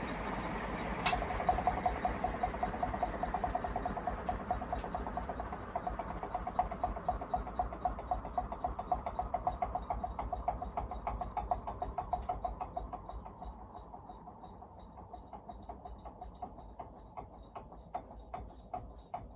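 Northwest Envirofan Heavy Duty Gold Line industrial ceiling fan: a sharp click about a second in, then the fan turns with a rhythmic pulsing, once per revolution. The pulses slow and grow quieter as the fan loses speed.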